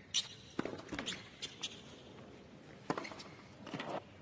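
Tennis rally on a hard court: sharp hits of rackets on the ball at irregular intervals, with the players' footwork on the court between strokes.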